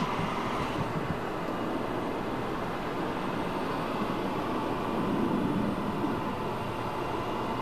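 Steady airport-apron noise: the continuous rumble and hiss of jet aircraft noise on the tarmac, with no distinct events.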